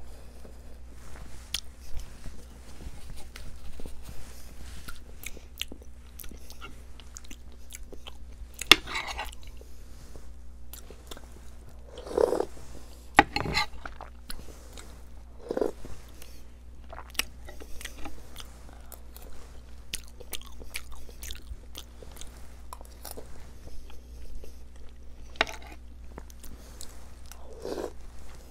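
Close-miked chewing and mouth sounds of a person eating Iraqi pacha, with a handful of louder short smacks or slurps scattered through. A steady low hum runs underneath.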